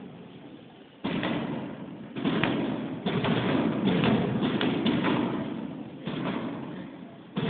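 A series of about five loud fireworks bangs, each starting suddenly and dying away over a second or so, about a second apart early on and again near the end.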